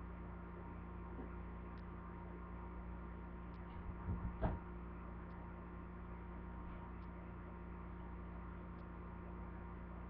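Steady low electrical hum, with one brief muffled bump about four seconds in as the honey bottle is handled over the bowl.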